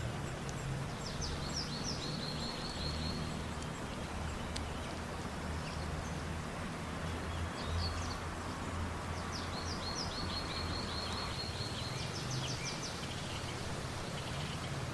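A songbird singing two phrases, each a quick run of repeated high notes lasting about two seconds, the first about a second in and the second near the middle. Under it runs a steady rushing background with a low hum.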